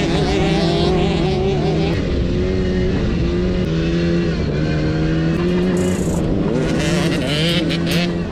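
Suzuki LT50 kids' quad bike's small 49cc two-stroke engine running on the throttle, its pitch rising and falling as it revs up and eases off.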